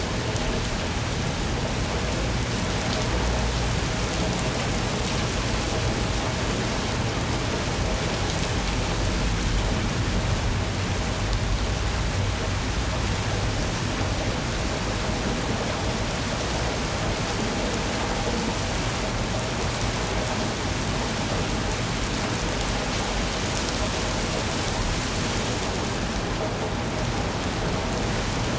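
Steady rain falling in an even, unbroken hiss, with a low rumble underneath that swells a few seconds in and again near the middle.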